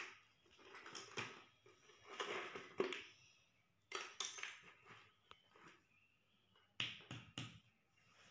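Faint, irregular clinks and knocks of small metal pieces being picked out of a bucket and handled, with a few sharper knocks about four seconds in and again near seven seconds.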